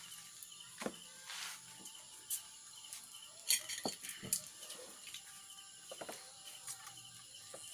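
People eating crabs with their hands: scattered sharp clicks and cracks of shell and knocks on plates, the loudest about three and a half seconds in, over a steady high-pitched insect trill.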